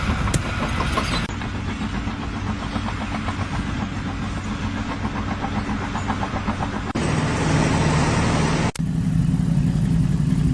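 Motor vehicle engine running steadily, with abrupt changes in the sound where one clip cuts to the next, about a second in, near seven seconds and near nine seconds.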